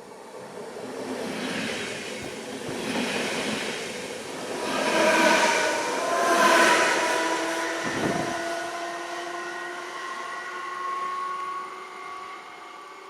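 A train passing by, growing louder to its loudest about five to seven seconds in and then fading away. A rushing rumble from the wheels runs with a steady whine under it.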